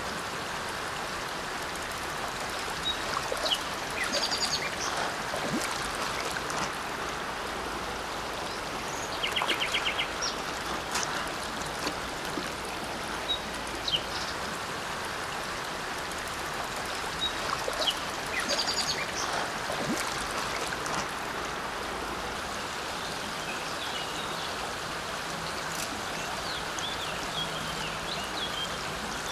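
Shallow river water flowing steadily, with a bird giving short trilled calls a few times.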